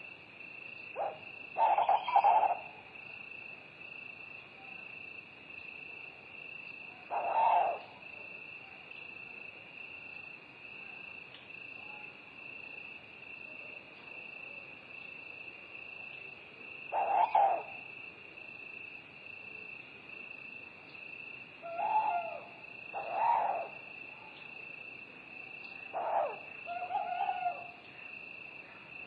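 An owl hooting in short calls every few seconds, some in close pairs, over a steady high-pitched chorus of crickets.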